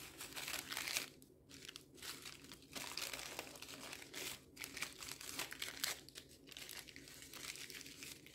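Coffee filter paper crinkling and rustling in the hands as scraps are wrapped around the base of a paper flower. The sound is faint and comes in irregular crackles.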